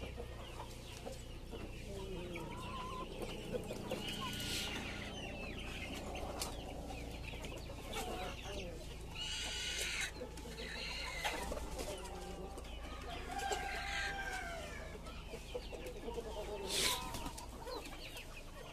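A flock of hens, mostly Rhode Island Reds, clucking and calling over one another in short calls that bend up and down in pitch, with a few louder calls standing out.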